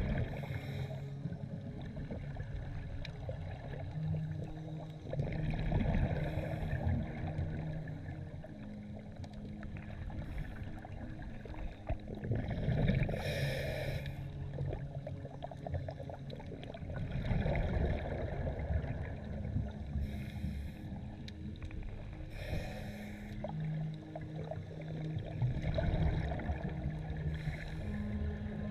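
Scuba diver breathing underwater through a regulator: a hiss on each inhale and a rush of exhaled bubbles, repeating every four to five seconds.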